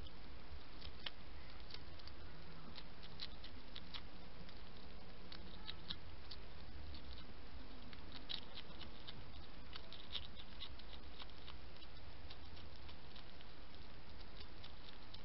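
European hedgehog eating at the ground: an irregular run of small crisp clicks and crunches from its chewing and snuffling, over a steady low hum.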